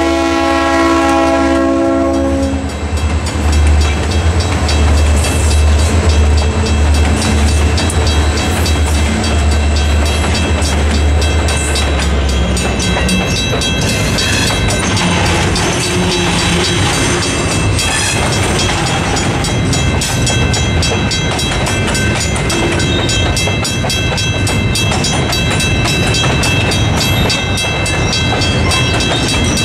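Freight train passing a level crossing: the lead EMD diesel locomotive's horn cuts off about two seconds in and its engine runs by for the first twelve seconds or so, then gondola cars roll past with steady clicking wheels. The crossing's Western Cullen Hayes mechanical bell rings throughout.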